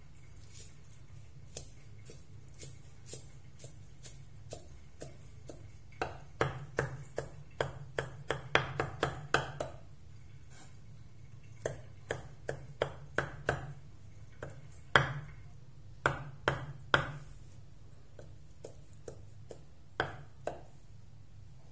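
Steel meat cleaver chopping a pile of thin white noodles on a round wooden chopping board: sharp knocks of the blade hitting the board, in quick runs of chops with pauses between. The loudest strokes come about two-thirds of the way in.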